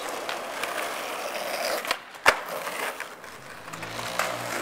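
Skateboard wheels rolling over rough asphalt, a steady gritty rumble, with one sharp clack a little over two seconds in.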